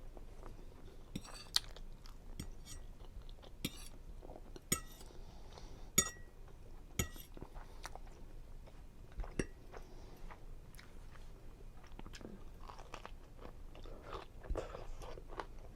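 Close-miked chewing and wet mouth sounds of someone eating seafood Alfredo linguine, with scattered short smacks and clicks, the loudest about six seconds in.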